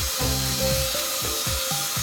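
Background music with a low bass pattern and short falling drum hits that repeat every two seconds, over a steady hiss.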